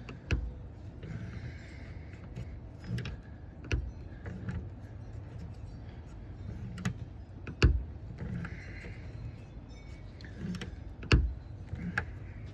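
A hand rivnut setting tool being worked on a rivnut, giving sharp metallic clicks and knocks about every three to four seconds, with short scraping sounds between them, as the rivnut is squeezed down into its hole.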